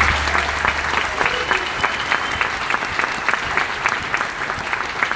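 Audience applauding, a dense patter of many hands clapping. A thin high steady tone sounds over it for about two seconds, starting about a second in.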